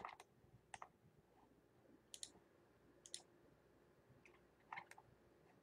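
Faint, scattered clicks of computer input, about eight over the few seconds, some in quick pairs, over a faint steady hum.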